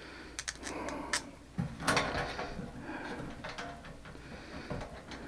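Hands working on parts of the unit: a few sharp clicks in the first second, a knock about two seconds in, then softer scraping and rubbing.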